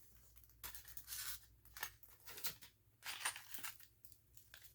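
Packaging being handled as the contents are pulled from a smoke alarm's box: paper and cardboard rustling and scraping in short, scattered bursts, with a few light clicks.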